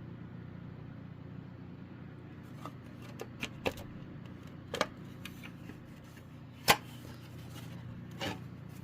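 Handling noise: a handful of light clicks and knocks, the sharpest about two-thirds of the way through, over a steady low hum.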